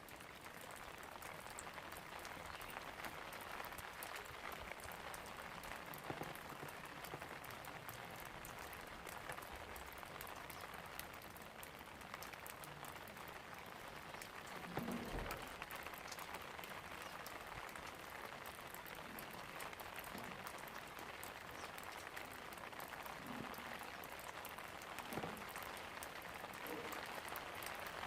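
Steady rain falling, an even hiss full of fine drop ticks. A brief, soft low thump comes about halfway through.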